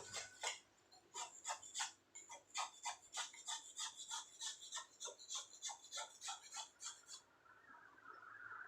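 A hammer tapping a steel chisel into soft paras Jogja stone by hand, in a quick steady run of light strikes about three to four a second that stops about seven seconds in.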